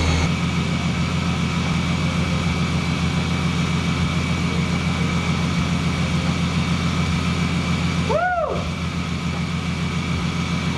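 Supercharged VQ37VHR 3.7-litre V6 of an Infiniti Q50 idling steadily, heard from underneath the car, with the engine kept running so the transmission fluid can be filled hot. About eight seconds in, a short squeak that rises and falls in pitch.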